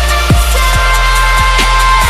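Background music: an electronic pop track with deep bass and a steady drum beat.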